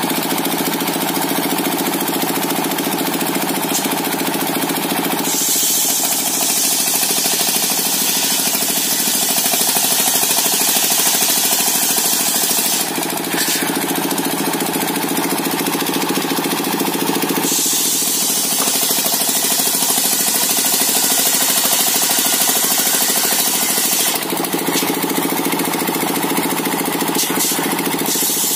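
Engine-driven circular saw running steadily while cutting coconut wood into beams. Twice, for several seconds each, the blade is in the cut and a loud high-pitched hiss of sawing rides over the engine, with a shorter burst near the end.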